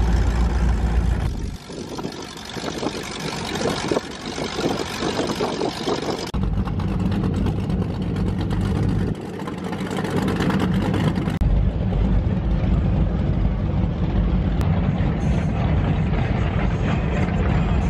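Motorboat under way: a steady engine drone with heavy wind rumble on the microphone and water noise. The sound changes abruptly about a second and a half in, again around six seconds and again around eleven seconds.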